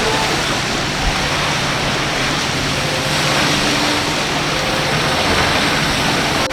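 Steady rush of breaking waves and churning water in a rough inlet, with a faint boat engine drone underneath.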